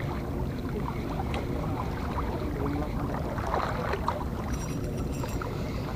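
Steady low rumble of wind and small waves lapping at a rocky seashore, with a few faint knocks.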